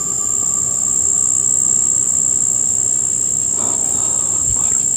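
Insects keeping up one continuous, very high-pitched chirring tone that does not let up. Near the end, something else is heard faintly for about a second.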